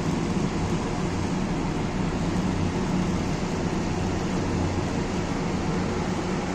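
Zamil package air-conditioner running steadily, its compressor just started on a newly replaced contactor: a steady low hum over even fan and airflow noise.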